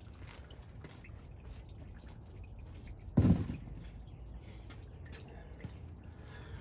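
One dull thump about three seconds in, from car parts being handled while the radiator fan assembly is worked on. Under it, faint background noise with a few light ticks.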